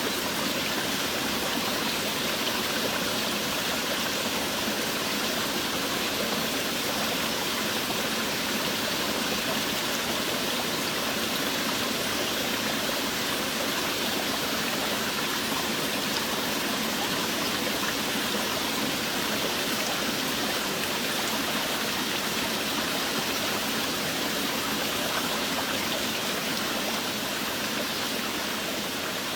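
Steady heavy rainfall, an even rushing hiss of water, a little quieter near the end.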